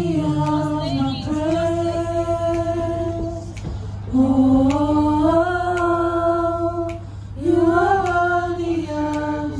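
A small group of choir voices singing unaccompanied, blending closely in three long held phrases, each slightly rising, with short breaths between them.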